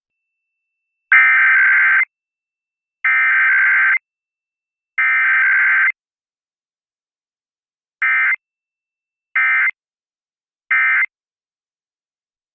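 Emergency Alert System SAME digital data tones in an EAS test broadcast: three header bursts of about a second each, then three short end-of-message bursts, with no attention signal between them.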